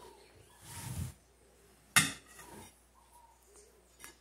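A metal fork clinks once, sharply, against a glass plate about two seconds in, with a few fainter taps of cutlery on glass after it.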